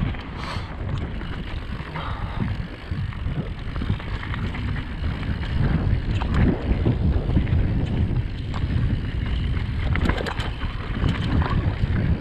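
Riding wind buffeting the action camera's microphone on a fast mountain-bike descent, over the rattle and clatter of the Radon Swoop 8.0 AL enduro bike running over rough trail.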